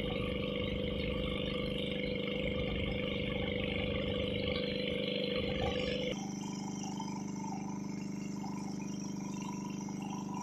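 Pumpboat engine running steadily while underway, with the rush of water from the hull and wake. About six seconds in, the sound changes abruptly and the deep low rumble drops away while the engine's steady tone carries on.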